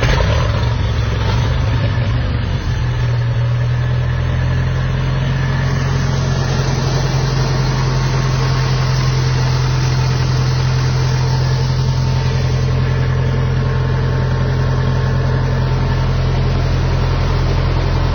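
1974 International Harvester 574 tractor's four-cylinder gas engine running just after starting, settling within the first few seconds into a steady idle.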